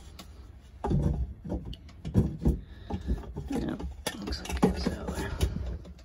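Handling noise of plastic sink drain trap parts being fitted back together: irregular knocks, clicks and rubbing, starting about a second in.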